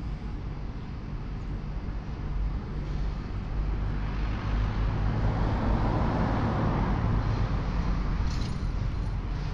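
A motor vehicle passing by. Its engine and tyre noise swell to a peak around the middle and then fade, over a steady low rumble.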